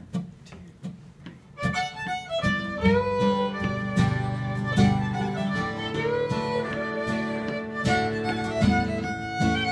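Fiddle and acoustic guitar playing an instrumental intro. A few sparse, quiet strokes open it, then about a second and a half in the fiddle enters with a gliding melody over the guitar's steady accompaniment.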